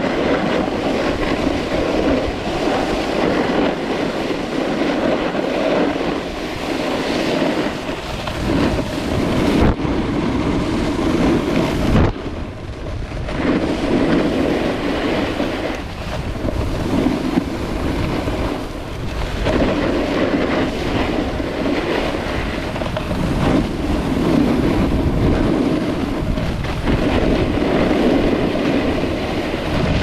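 Snowboard scraping and sliding over groomed snow, a continuous rough rumble that swells and eases every few seconds as the rider turns, with wind on the microphone.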